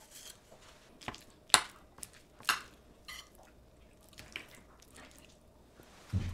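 A metal spoon clinking and scraping against a ceramic bowl as it breaks a fried egg and mixes it through the salad, with about six sharp clinks over the first three seconds and softer wet squishing. A low thump near the end.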